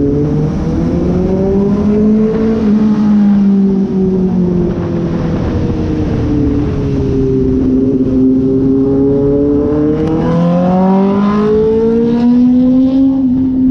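Bajaj Dominar 400's single-cylinder engine running under way, its note rising and falling several times as the throttle opens and closes.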